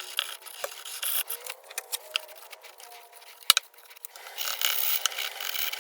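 An old metal tin being scrubbed clean by hand. The rubbing is scratchy, with scattered small clicks and taps, and grows louder about four seconds in.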